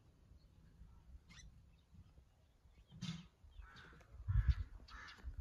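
A crow cawing about four times in quick succession in the second half. Low thuds near the end are the loudest sound.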